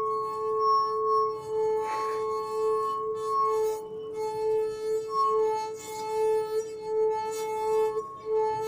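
A wine glass sung by rubbing its rim with a wet finger: one steady ringing tone with overtones, its loudness pulsing about once a second.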